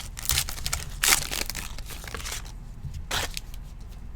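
Crinkling and tearing of a trading card pack's wrapper as it is opened, in several short bursts, loudest about a second in.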